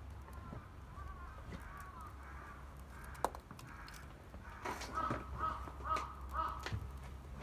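A crow cawing: softer calls in the first half, then four loud caws in quick, even succession about five seconds in. A single sharp click a little after three seconds in.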